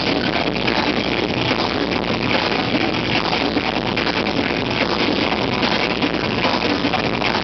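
Heavy metal band playing live: loud, dense electric guitar and drums filling the room without a break.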